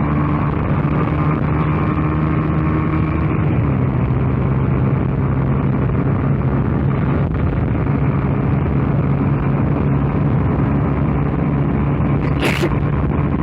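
Single-cylinder engine of a Honda Titan 150 motorcycle running steadily under way, with wind noise over a helmet-mounted action camera; the engine note shifts slightly about three and a half seconds in, and a brief hiss comes near the end.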